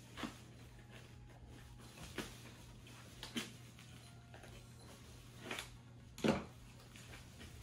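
Spatula scraping and knocking around the inside of a plant pot to loosen a root-bound plant: five short scrapes a second or so apart, the loudest near the end, over a faint steady low hum.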